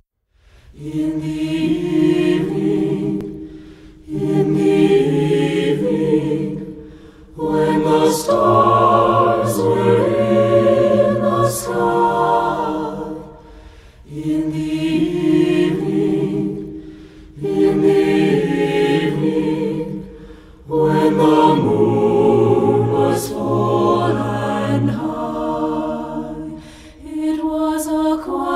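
Mixed SATB choir singing a cappella in slow, sustained chords. The phrases are a few seconds long, each swelling and fading, with short breaths between them.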